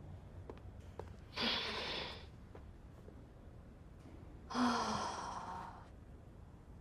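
A woman sighing twice: two long, breathy exhales about three seconds apart, the second starting with a brief voiced catch.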